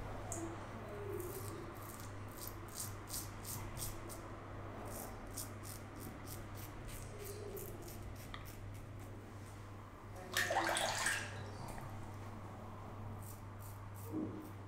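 Green Cult safety razor with a Wizamet Super Iridium blade scraping through lathered stubble in a quick series of short, crisp strokes. About ten seconds in, a brief rush of running water as the razor is rinsed.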